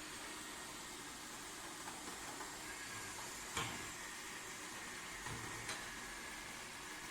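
Lefant M210 Pro robot vacuum running with a steady hiss and a thin, high whine. A sharp knock comes about three and a half seconds in, and two lighter ones follow about two seconds later.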